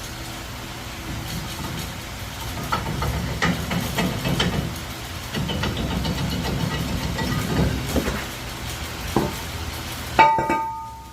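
Metal parts and hand tools knocking and clanking during work on a vehicle's brakes, over a low rumble, with one sharp ringing metal clang about ten seconds in.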